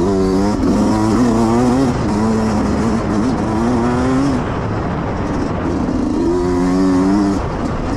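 Yamaha YZ125X 125 cc two-stroke dirt bike engine under hard riding, its pitch climbing and dropping again and again as the throttle is worked and gears change.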